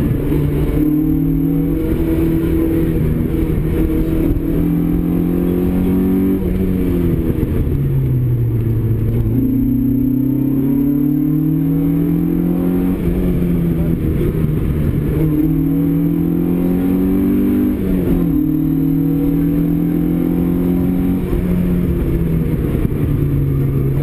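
Opel Kadett GT/E's four-cylinder engine heard from inside the cabin, pulling hard along a rally stage: the revs climb steadily and drop sharply again and again as the driver accelerates, shifts and lifts between corners.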